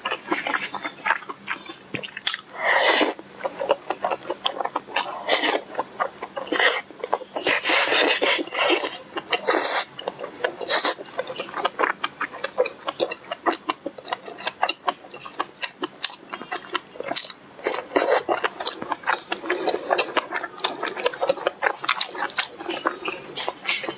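Close-miked eating at a fast pace: rapid, wet chewing and smacking clicks, with several louder noisy stretches lasting a second or two.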